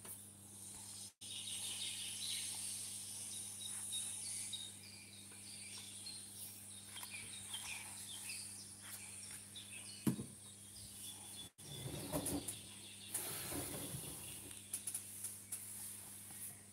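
Outdoor ambience of small birds chirping over a steady high insect hiss. There is a sharp knock about ten seconds in, then a few seconds of rustling from the phone being handled.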